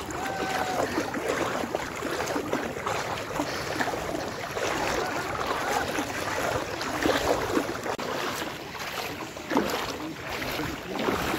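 Legs wading through knee-deep floodwater, sloshing and splashing with each step.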